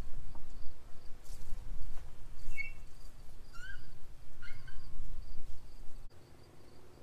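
Outdoor rural ambience: a steady high trill of crickets, with a few short bird chirps in the middle, over a low rumble that drops away about a second before the end.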